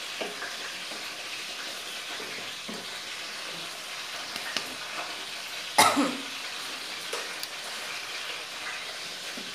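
Steady background hiss, with one short cough-like voice sound about six seconds in.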